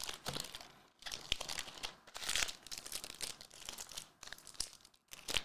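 Trading-card pack wrappers crinkling as the packs are handled and stacked. The crinkling comes irregularly, with short pauses about a second in and near the end.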